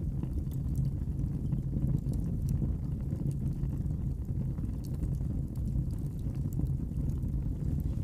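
Wood fire burning in a fireplace: a steady low rumble of flame with faint, scattered small crackles.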